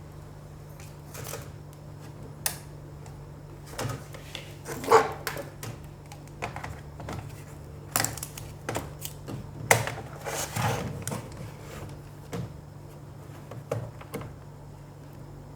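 Irregular clicks and knocks of a Dell laptop being reassembled by hand, with a steady low hum underneath.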